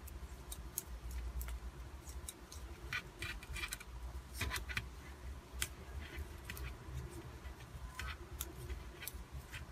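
Metal double-pointed knitting needles clicking lightly against each other as stitches are knitted in the round, in irregular single clicks and short clusters, over a faint low hum.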